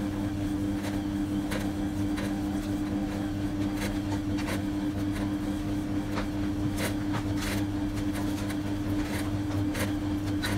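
Electric stand mixer's motor running steadily, its dough hook kneading pizza dough in a stainless steel bowl, with scattered knocks and clicks throughout.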